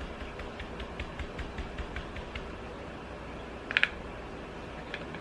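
Stencil brush pouncing paint through a stencil onto a wooden frame: light, quick taps about four a second that die away after about two seconds, then a short cluster of sharper clicks a little before the end.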